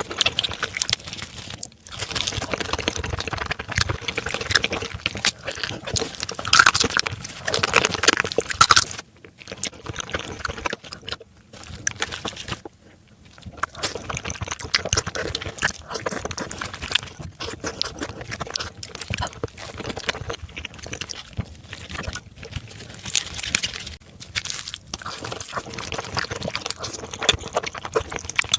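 Close-miked eating of marinated raw crab: wet sucking and slurping of the soft meat and marinade from the shells, with chewing, crunching and dense wet crackles. There is a quieter pause about nine to thirteen seconds in.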